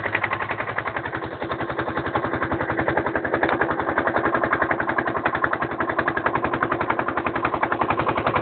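A motorboat's engine running steadily, with a rapid, even chugging beat.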